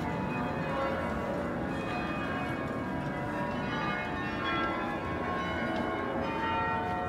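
Church bells ringing, many pitched strikes overlapping and lingering.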